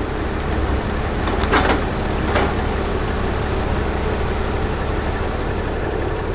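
Heavy diesel engine running steadily, with two short knocks about a second and a half and two and a half seconds in.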